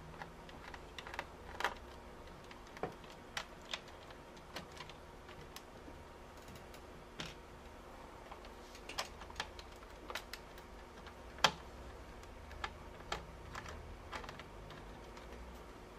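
Faint, irregular clicks and taps of a small screwdriver and fingers working at the plastic screen bezel of a Compaq Presario 2100 laptop, taking out its screws. One sharper click comes about two-thirds of the way through.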